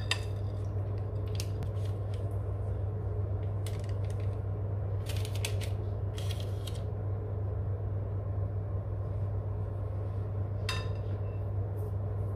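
A steady low hum with a few short scraping sounds now and then: a spatula scraping chickpea-flour batter with agretti out of a glass bowl onto a baking tray lined with baking paper.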